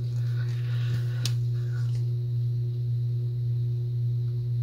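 Steady low hum, with faint cloth rustling and a single click a little over a second in as slip-joint pliers grip a stuck part of a vintage spincast reel through a towel; the part does not turn.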